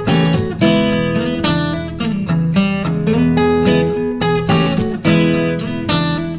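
Intro music: acoustic guitar strummed in chords with a steady rhythm.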